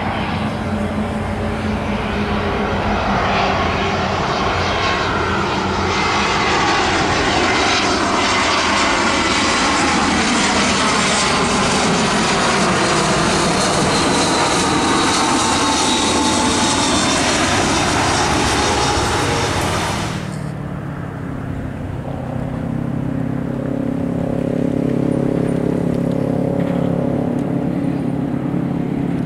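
Airbus A320 jet airliner on final approach flying past: a loud jet engine noise with a whine that falls in pitch as it goes by. About 20 seconds in the sound cuts off abruptly to a steadier, lower hum of a twin-engine widebody airliner approaching from farther off.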